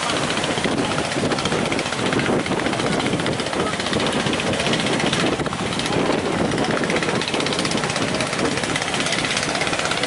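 Engines of outrigger fishing boats running hard at speed through rough water, a steady, fast pulsing.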